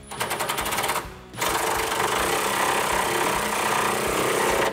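A power wrench runs down the 18 mm nut on the panhard bar bolt. It gives about a second of rapid, even clicking, a short pause, then a steady run of about three seconds.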